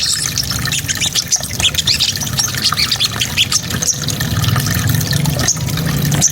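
Small songbird singing a rapid, dense run of short, high chirps and twitters, over a steady low background rush.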